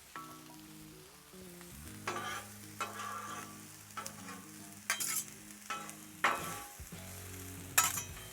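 Chopped vegetables and pineapple sizzling on a hot steel flat-top griddle, with a spatula scraping and tossing them across the steel in sharp strokes every second or two.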